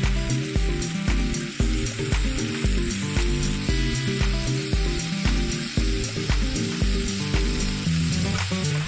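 Chicken breast sizzling as it fries in a pan, a steady hiss, over background music with a regular beat.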